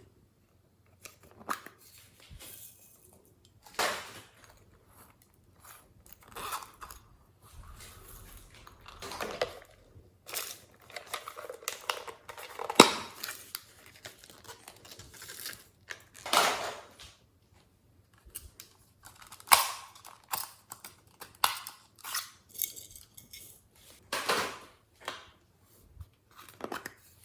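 Glossy slime being kneaded and squeezed by hand, giving irregular sticky crackles, clicks and pops, some louder than others.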